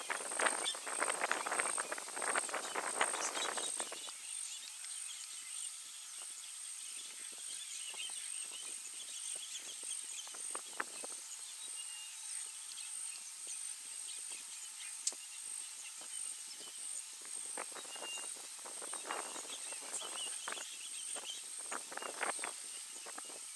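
Elephants feeding in dry grass and brush: bouts of rustling and crackling, heaviest at the start and again from about two-thirds of the way through. Between the bouts there are only scattered crackles over a steady high hiss.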